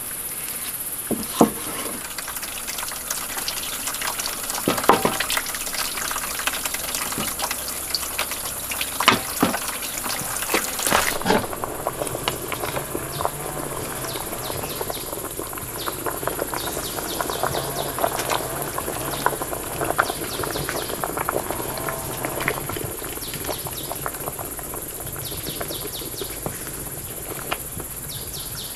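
Steady high insect chorus, with scattered knocks and clatter and some water sounds.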